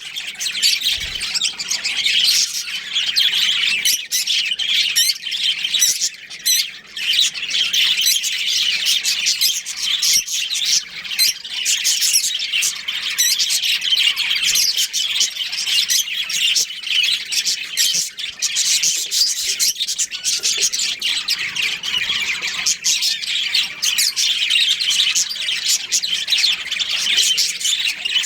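Colony of budgerigars chirping and squawking, many birds chattering at once without a break.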